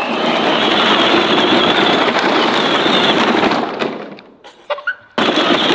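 Hard plastic wheels of children's pedal tractors rolling over gravel and loose straw, a steady rolling noise. It dies away about four seconds in and comes back abruptly near the end.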